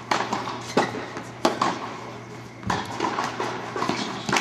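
Tennis ball being hit by rackets and bouncing on an indoor hard court during a rally: a series of sharp pops, each trailing a short echo from the hall.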